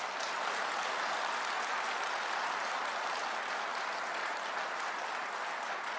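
Large audience applauding, many people clapping at once at a steady level.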